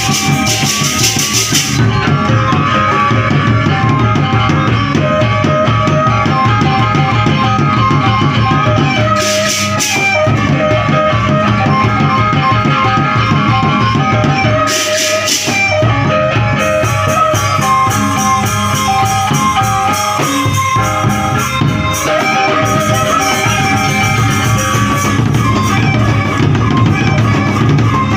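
Gendang beleq ensemble playing: large barrel drums beaten in a fast steady rhythm under a bamboo suling flute melody, with bright cymbal crashes near the start and again around ten and fifteen seconds.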